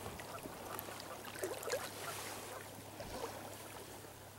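Faint splashing and lapping of shallow water around a landing net with a fish in it.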